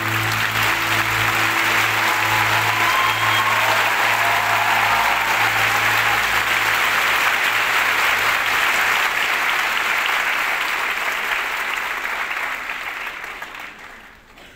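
A large cinema audience applauding, loud and sustained, dying away over the last couple of seconds. Low held notes of the film score sound under the clapping in the first half.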